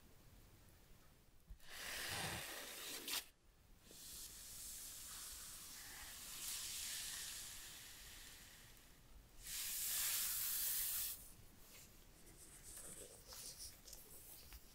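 Nitrile-gloved hands rubbing and sliding over a cardboard iPhone 12 box: several stretches of rustling, with the loudest about ten seconds in and a few light scuffs near the end.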